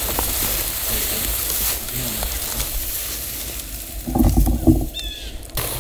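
Tall dry prairie grass swishing and rustling against legs and clothing as people walk through it, with a brief louder low rumble about four seconds in.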